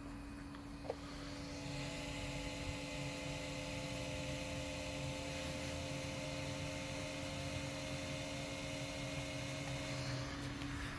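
Cree XHP-series LED headlight bulb running, a steady hum and whine of several fixed tones over a faint hiss from the bulb's fan and driver. A second whine and more hiss come in about a second and a half in and drop away near the end.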